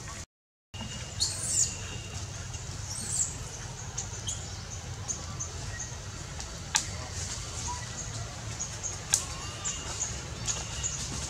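Outdoor ambience: short high chirping calls repeat every second or so over a steady low rumble, with a few sharp clicks. All sound cuts out briefly just after the start.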